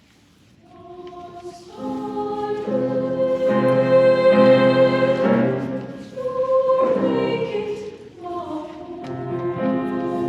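High school madrigal choir singing sustained chords. The singing enters softly about a second in, swells to its loudest around the middle, and breaks off briefly twice before the voices come back in.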